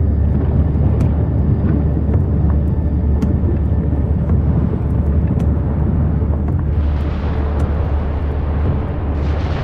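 Deep, steady roar of an erupting volcano, the Cumbre Vieja vent, with two hissing swells near the end as the lava fountains surge.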